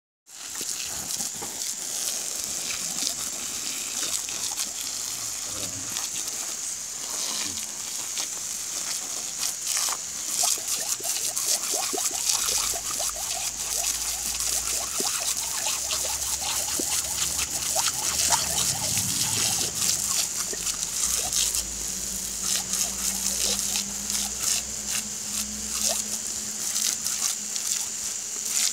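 Garden hose spraying a steady hiss of water onto dry ground and a German shepherd, with many small splashes and snaps as the dog bites and laps at the jet.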